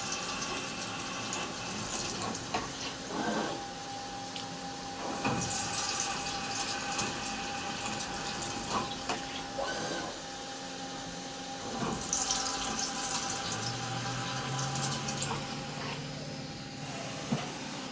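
CNC mill (Milltronics TRM3016) drilling a steel ring under flood coolant: a steady machine hum with coolant splashing over the work, and a few short clicks. A low hum comes in for a few seconds near the end.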